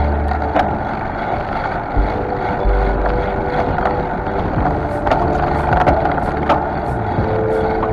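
Rushing wind on the microphone and road noise from a bicycle's front tyre rolling on asphalt, with a few sharp clicks and rattles along the way.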